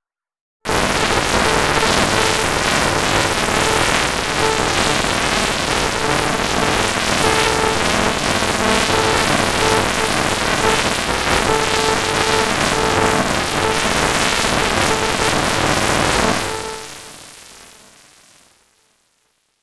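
Electronic jingle run through heavy, distorting audio effects: a loud, dense wall of noise with a few held tones, starting abruptly under a second in and fading out over the last few seconds.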